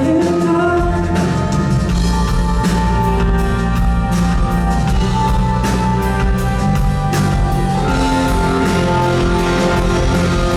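Live band playing an instrumental passage of a pop-rock ballad: drum kit keeping the beat over bass, with long held melodic lines on top and little or no singing.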